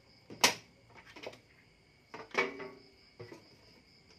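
A few handling clicks and knocks as fingers work the wire leads on a squirrel-cage blower motor, the sharpest click about half a second in. A faint steady high-pitched whine runs underneath.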